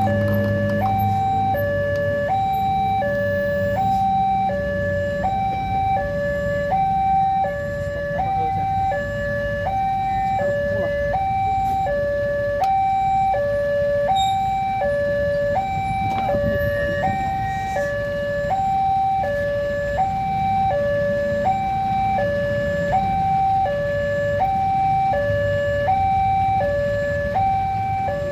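Level-crossing warning alarm sounding its electronic two-tone signal, switching back and forth between a higher and a lower pitch about every 0.7 s without a break. Under it is the low running noise of road vehicles.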